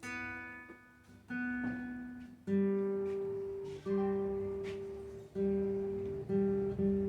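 Acoustic guitar strummed to play a serenade: single chords struck roughly every second and left to ring, with quicker strumming near the end.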